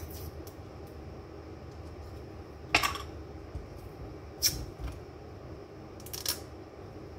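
Sharp plastic clicks and scrapes from the cap of a plastic salad-dressing bottle being worked at to open it; the cap is stiff and hard to open. The loudest click comes about three seconds in, with others around four and a half and six seconds in.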